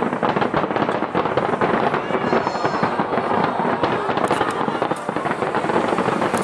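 Aerial fireworks: many shells bursting together in a dense, unbroken run of bangs and crackles.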